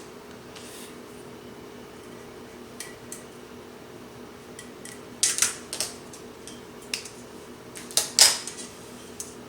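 Hard craft items being handled on a tabletop: scattered light clicks, with two short bursts of clatter about five and eight seconds in.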